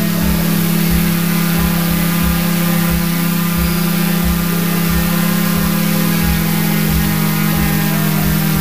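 Multirotor drone's motors and propellers humming steadily over a loud propeller hiss, the pitch shifting slightly about six and a half seconds in. A low thump repeats about twice a second underneath.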